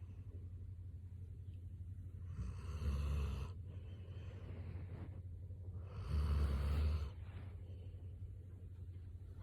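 Border collie snoring: two loud, rough snores about three and a half seconds apart, with quieter breathing between them.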